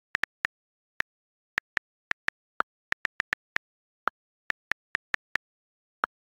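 iPhone on-screen keyboard click sounds as a message is typed: about twenty short, crisp taps at an uneven typing pace, with dead silence between them.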